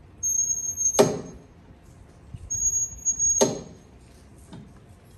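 Outdoor metal fitness machine worked through two strokes: each stroke brings a high squeal that ends in a clank, about two and a half seconds apart.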